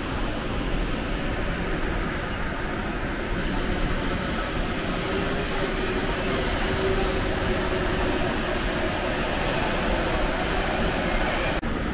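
Steady, even rushing noise with a low rumble. The hiss grows brighter about three seconds in and cuts off sharply near the end.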